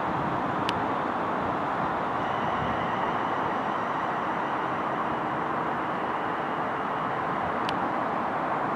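London Northwestern Railway Class 350 Desiro electric multiple unit approaching slowly into the platform: a steady rolling rumble with a faint, steady high whine from about two seconds in until near the end. Two sharp ticks, one under a second in and one near the end.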